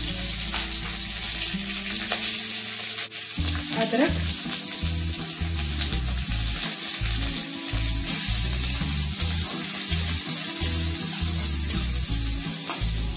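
Chopped onions frying in hot oil with whole spices in a metal kadhai, a steady sizzle, with a spatula stirring them near the end.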